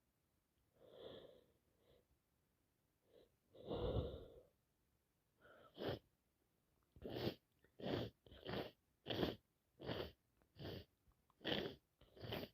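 A woman with allergies and a cold sneezing. A couple of catching breaths come first, then a rapid run of about eight short sneezes in the second half, one every second or less.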